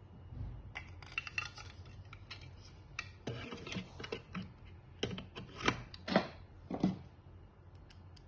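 Small hard objects being handled: irregular clicks, taps and light scraping, with three louder knocks about two-thirds of the way through.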